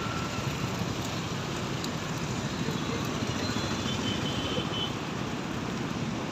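Steady outdoor din of road traffic mixed with a large flock of feral rock pigeons, with a faint distant vehicle horn near the middle.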